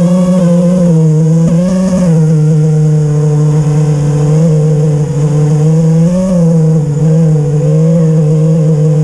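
Brushless motors of a 5-inch FPV freestyle quadcopter (T-Motor F40 III 2600 Kv) whining in flight, the pitch wavering up and down with throttle changes and swelling briefly about two seconds in and again about six seconds in.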